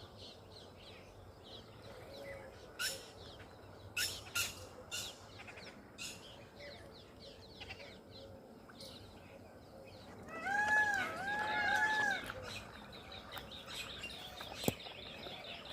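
Several birds chirping and calling, with a louder run of about five repeated arching calls between roughly 10 and 12 seconds in.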